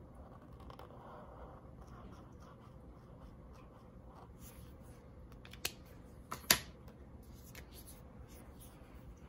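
Marker tip stroking softly across paper while colouring, followed a little past halfway by two sharp clicks, the second much louder.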